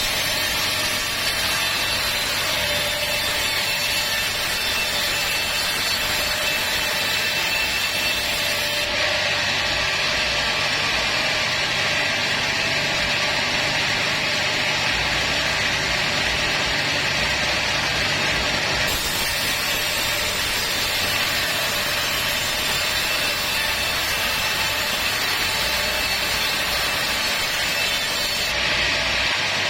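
Sawmill saw cutting teak wood, running steadily, with abrupt shifts in tone about every ten seconds.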